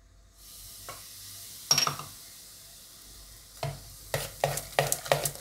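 Eno fruit salt fizzing with a steady hiss as water hits it in rava idli batter, with one clink about two seconds in. From about three and a half seconds in, a spoon stirs the batter in quick even strokes, about three a second, to mix the Eno through.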